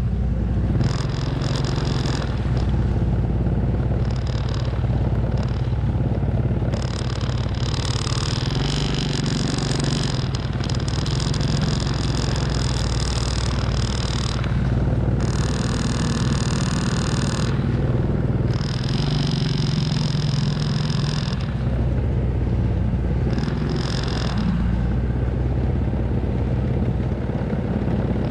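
Heavily loaded log truck's engine running steadily as it crawls along a rutted dirt track, heard from close behind. A high ringing comes and goes several times over the top.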